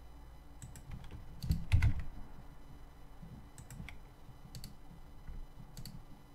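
Computer keyboard keys and mouse buttons clicking, a handful of scattered clicks, the loudest pair about one and a half seconds in with a low knock beneath them.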